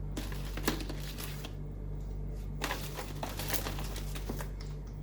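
Crinkling and rustling of toys and wrappings being handled while rummaging through a bucket of toys, in two stretches with a few light clicks, over a steady low hum.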